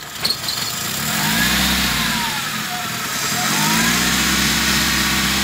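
2008 Suzuki Grand Nomade's J20A four-cylinder engine running, speeding up about a second in and again about three and a half seconds in as gasoline is splashed on the intake manifold. The fuel drawn in through a leak makes the engine pick up, which the mechanic takes for a cracked intake manifold.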